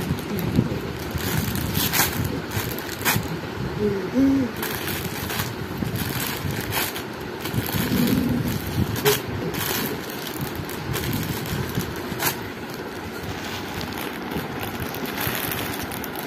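Plastic snack packet crinkling in a small child's hands in short sharp bursts, over a steady low background noise. A few brief voice sounds from the child around four and eight seconds in.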